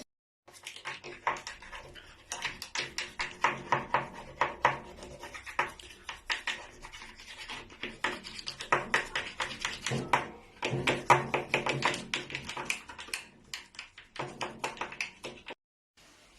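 Rapid scratching and scrubbing strokes, like a brush worked hard over washing-machine parts to clean off grime, with clicks and taps of the parts being handled.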